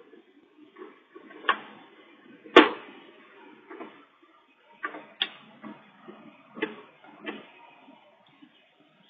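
Irregular sharp knocks and clicks over a low rustling, about seven in all with the loudest about two and a half seconds in, as a dachshund knocks about and rummages at home, picked up by a pet camera's microphone.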